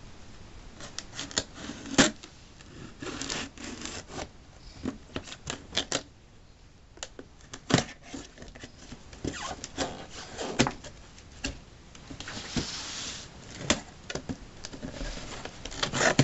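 A cardboard shipping box being opened by hand: irregular clicks, knocks and scrapes of cardboard flaps and packing, with rustling in between and a short rasping stretch about three-quarters of the way through.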